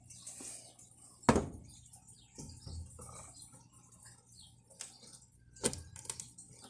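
Handling noises: a sharp knock about a second in and another near the end, with lighter clicks and rustling between.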